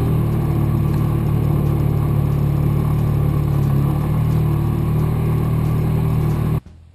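Polaris Ranger side-by-side's engine running steadily as it drives along, cutting off suddenly near the end. Faint music follows the cut.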